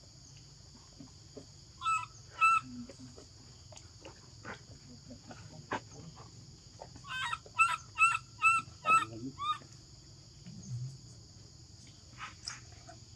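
Baby macaque crying in short, high-pitched distress calls: two about two seconds in, then a run of about six close together a few seconds later.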